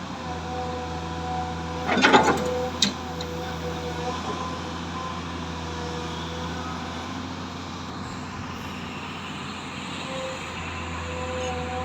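Komatsu PC200 hydraulic excavator's diesel engine idling with a steady hum. About two seconds in comes a short, loud clatter, followed by a single sharp click.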